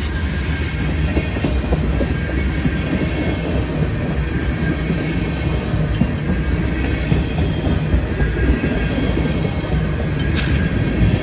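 Union Pacific manifest freight train's covered hoppers and tank cars rolling past close by: a steady, heavy rumble of steel wheels on rail.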